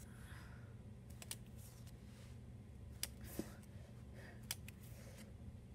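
Faint soft clicks and rustles of Pokémon trading cards being flipped through and slid from one hand to the other, a few separate clicks over a steady low hum.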